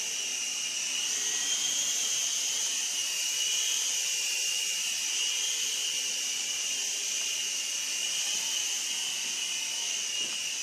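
Sky Rover Navigator toy RC helicopter in flight, its small electric motors and rotors giving a steady high-pitched whine.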